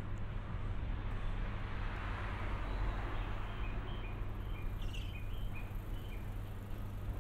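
A steady low hum with a hiss, and a few short, high bird chirps about four to six seconds in.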